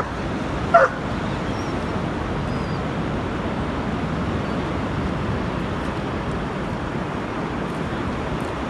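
A dog barks twice near the start, two short sharp barks, over a steady rush of wind and sea surf.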